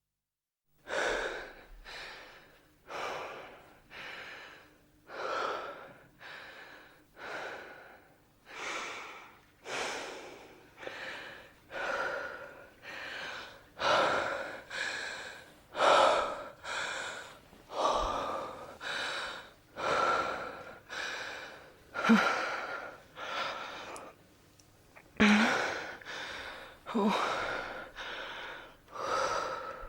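A person breathing heavily, in and out in a steady rhythm of about one breath every two seconds, with a few short voiced gasps.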